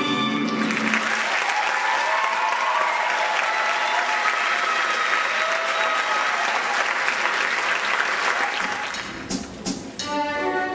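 Music stops about a second in and a crowd applauds for several seconds, the clapping thinning out near the end. A live band starts playing again at the very end.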